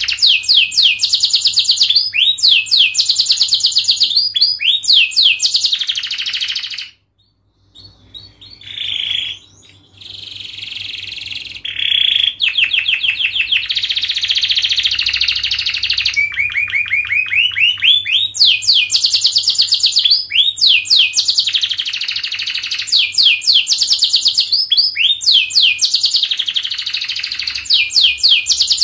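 Domestic canary singing long, dense trills of rapidly repeated high notes. The song breaks off briefly about seven seconds in, then carries on.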